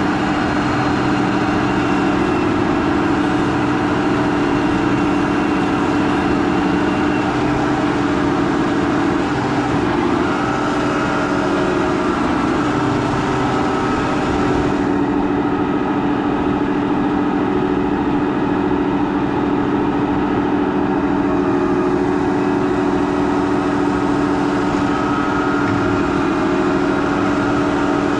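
Case IH Quadtrac 580 tracked tractor's diesel engine running steadily while pulling a 14-furrow plough.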